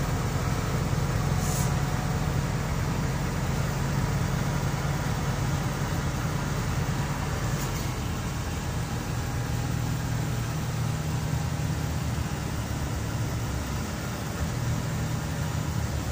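Cabin sound of a moving 2009 Scania CN270UB city bus: a steady engine drone with road noise, the engine note easing off and coming back about two thirds of the way through. Two brief hisses, one early and one about halfway.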